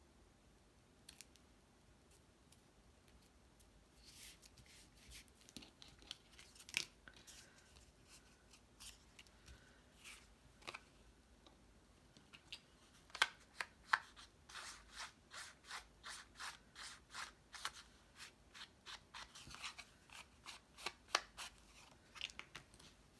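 Hands working card stock: a run of short, crisp snips and scrapes, sparse at first and coming quickly and steadily in the second half.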